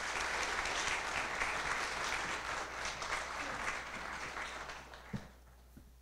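Audience applauding steadily, then dying away about five seconds in, with a single soft knock near the end.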